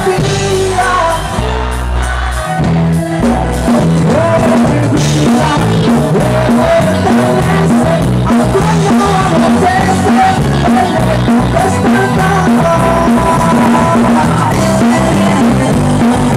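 Live band playing amplified music with singing, a steady beat and bass; the rhythm gets busier about three seconds in.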